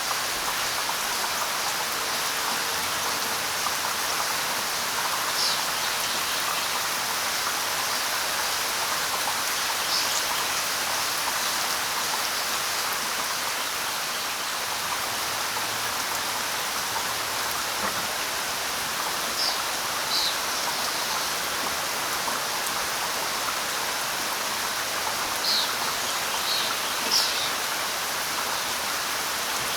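Steady light rain falling, with a few short, high bird chirps scattered through it, several close together near the end.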